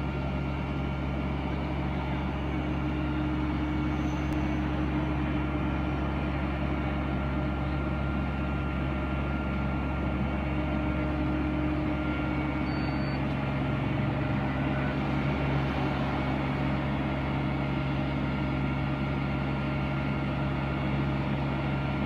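Diesel engine of a parked fire engine running steadily, a constant low drone with several steady tones.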